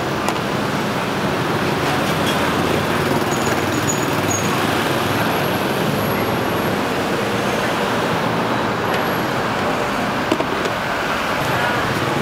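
Steady street traffic noise, a continuous wash of passing cars, with a small knock about ten seconds in.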